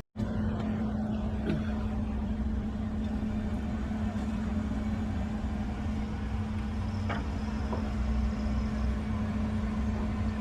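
A steady mechanical drone, a low rumble with a constant hum, with a few faint light knocks.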